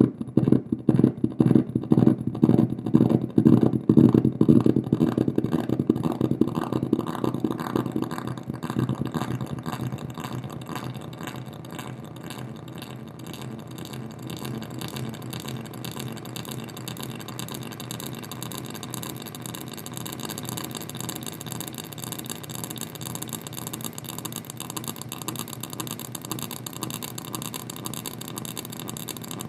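Electronic noise from strobe-light flicker picked up by a solar cell and fed through delay and distortion pedals into an amplifier: a loud, rapidly pulsing distorted buzz. After about eight seconds the pulses blur into a quieter, steadier, hissier drone.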